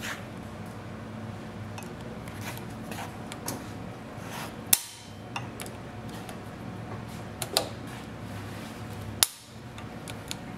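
Snap ring pliers working a steel retaining snap ring out of a bearing bore, with small metallic ticks and three sharp clicks: one just before halfway, one about three quarters through and one near the end. A steady low hum runs underneath.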